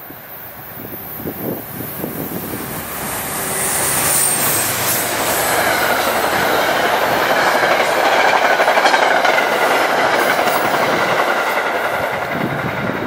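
Metro-North push-pull passenger train, a locomotive hauling a string of coaches, passing at speed: wheel and rail noise builds as it approaches, is loudest around the middle and eases as the cab car pulls away. A brief high squeal comes about four seconds in.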